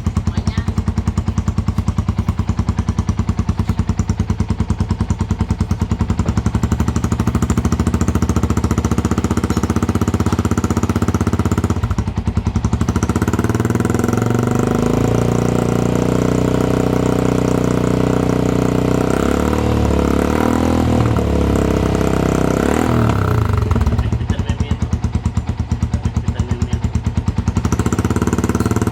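Yamaha Sniper 150's single-cylinder four-stroke engine running through an aftermarket ORBR 'chicken pipe' exhaust. It idles with an even, thumping pulse, is held at higher revs from about halfway in with the pitch swinging up and down, drops back to idle, then rises again near the end.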